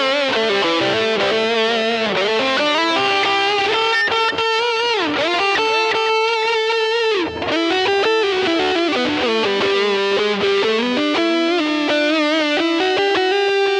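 Electric guitar played through a Zoom G1XN multi-effects pedal: a single-note lead line with long held notes, vibrato and string bends, on a sustaining effected tone.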